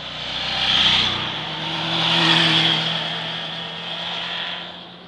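Two motorcycles riding past at speed one after the other, their engines loudest about a second in and again just after two seconds in, then fading as they ride away.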